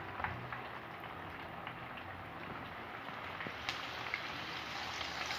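Breaded chicken deep-frying in hot oil in a frying pan: a steady sizzle with scattered pops and crackles.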